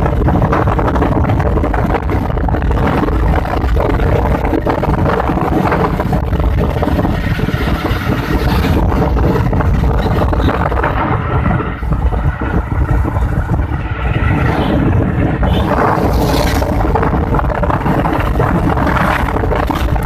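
Loud, steady road and wind noise from inside a moving car, with the rush of air past the side window over the hum of engine and tyres.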